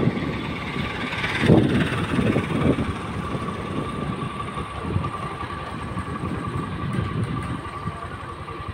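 Motorcycle engine running as the bike rides along at low speed, under uneven wind rumble on the microphone, with a faint steady whine throughout.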